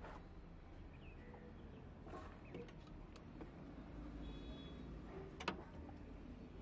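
Faint outdoor background noise with a few light clicks, and one sharper click about five and a half seconds in.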